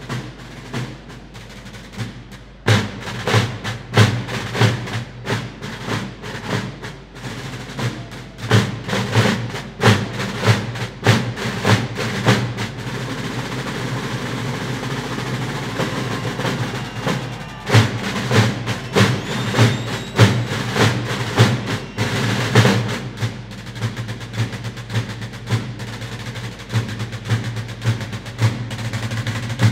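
Large natural-skin Moratalla drums, held upright and beaten with two sticks, played by several drummers in a rhythm of separate strokes. Sparse at first, loud from about three seconds in, they break into a continuous roll about halfway through, then go back to separate strokes, with a shorter roll later.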